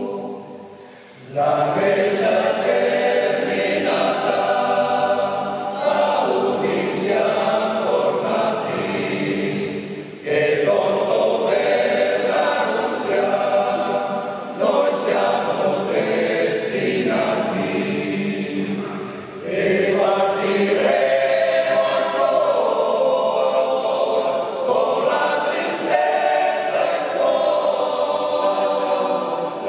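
Men's choir singing a cappella in several parts, phrase after phrase, with a short breath pause about a second in. The voices ring in the reverberant space of a large church.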